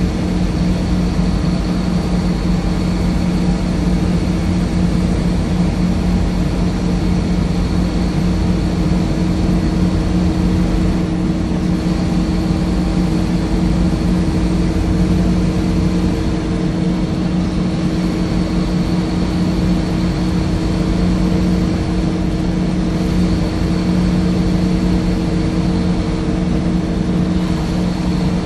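Scania K230UB bus engine running steadily, heard from inside the passenger saloon: an even, low drone that holds the same pitch throughout, over a rumble of the bus body.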